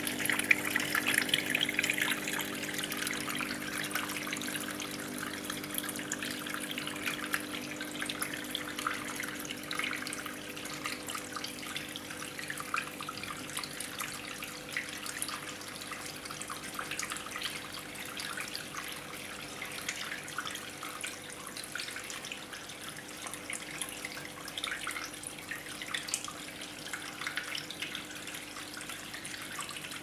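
Small vivarium waterfall trickling and splashing down a rock wall, with a steady low hum beneath it. It is louder for the first few seconds, then quieter and even.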